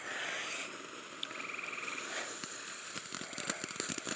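Small firework crackling faintly, a thin hiss at first and then scattered sharp pops and clicks that grow thicker toward the end. A short high trill sounds about a second and a half in.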